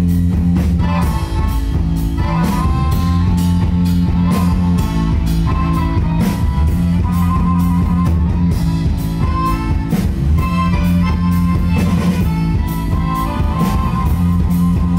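Live rock band playing an instrumental passage: piano accordion melody over a steady beat on drum kit and electric bass.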